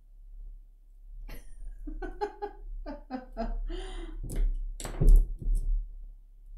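A woman's short wordless vocal sounds, a quick run of voiced syllables, then a few noisy thumps and rustles, the loudest about five seconds in.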